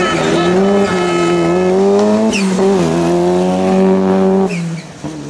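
Rally car engine running at high revs under load, its pitch dipping and climbing again with each gear change, with two short high squeals. About four and a half seconds in the engine note drops away and the sound gets quieter.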